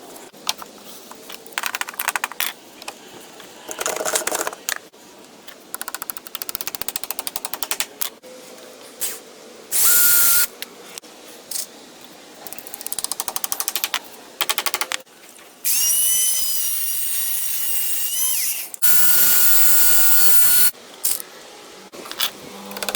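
Power drill running in several short bursts, some with a rapid clicking rattle and a longer run about two-thirds of the way through that rises in pitch.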